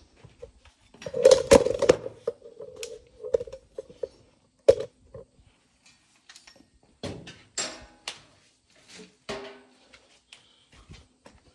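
Metal clattering and knocking as tools and sheet metal are handled: a burst of clanks with a short ring about a second in, a sharp single knock near the middle, and more clatter later.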